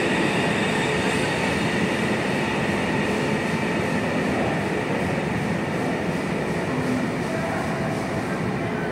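CR400AF high-speed electric multiple unit pulling out of the station and drawing away, a steady running noise that slowly fades.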